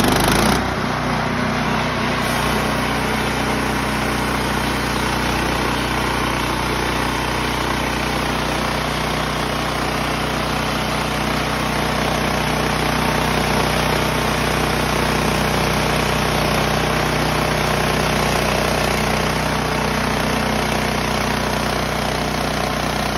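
Portable bandsaw sawmill running steadily, its small engine under load while the band blade cuts through a log.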